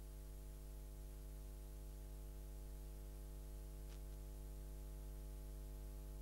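Steady electrical hum with a buzz of evenly spaced overtones under a constant hiss, the background noise of an old analogue video transfer; one faint click about four seconds in.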